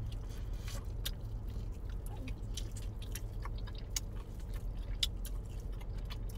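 Close-up biting and chewing of crispy Cajun fried mini corn on the cob, irregular crunching clicks over a steady low hum.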